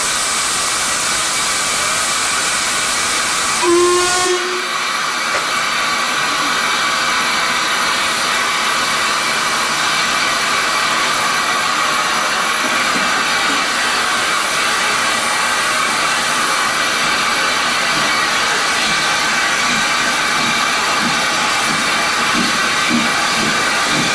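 Steam locomotive hissing loudly and steadily from escaping steam, with one short whistle blast about four seconds in. From about halfway, faint regular exhaust chuffs set in and quicken toward the end as the engine starts to pull away.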